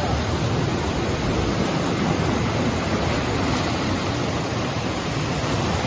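Fast-flowing floodwater rushing past, a steady, loud noise of moving water.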